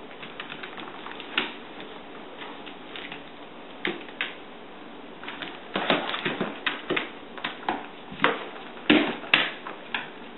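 A border collie's claws clicking and tapping on a tile floor as the dog steps and skitters about, an irregular scatter of clicks that grows busier and louder in the second half.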